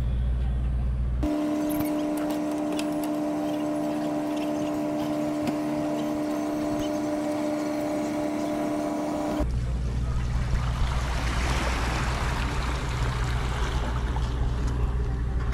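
A steady, even-pitched mechanical hum runs through the first half. Later a low rumble returns, and water splashes at the surface for a few seconds near the end.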